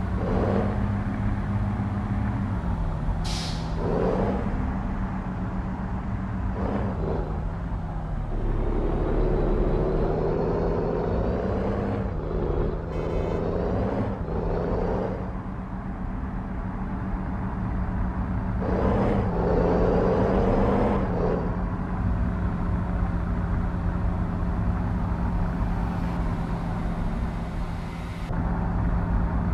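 Heavy truck diesel engine running steadily at low revs in slow traffic, its pitch stepping up and down a few times, with louder swells of passing traffic. A short hiss of air-brake air comes about three seconds in.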